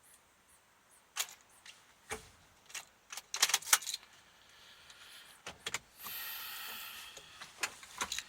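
Scattered clicks and knocks from the ignition and controls inside a 2006 Honda Odyssey's cabin, with a cluster of quick clicks midway and a short electric whir of about a second near the end, as the van fails to start on a bad battery connection.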